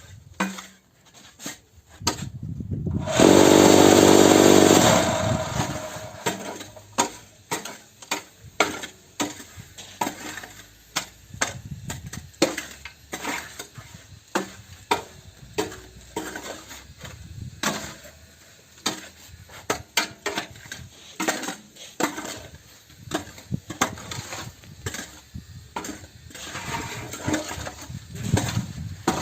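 Cinder-block making machine at work. Its vibrator runs loudly for about two seconds, then stops, followed by a long run of irregular metal knocks and clatters as the machine and mould are worked.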